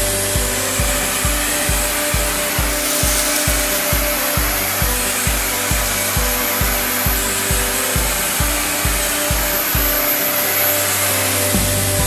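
Vacmaster Professional wet/dry shampoo vacuum's 5.5 peak HP two-stage motor running steadily in vacuum mode: a loud rush of air with a steady whine. Background music with a steady beat plays under it.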